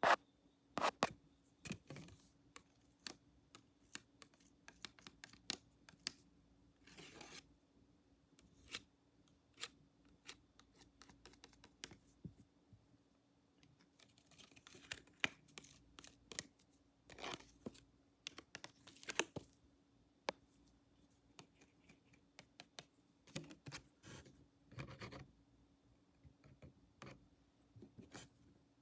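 Close-up ASMR handling sounds of pretend barber tools: irregular soft clicks, taps and short scratching sounds, some in quick clusters, over a faint steady hum.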